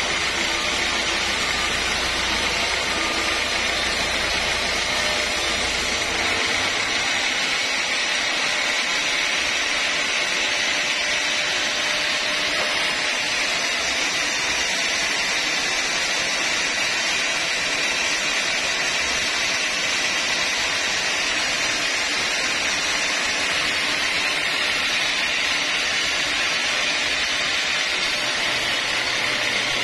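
Band sawmill blade cutting lengthwise through a large log: a steady, loud hiss of sawing over the running mill. A low hum underneath drops away about six seconds in.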